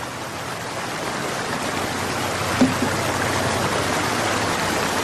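Water gushing steadily from a pump's outlet pipe and splashing into a full concrete trough, a dense rushing sound. A brief low sound stands out a little past halfway.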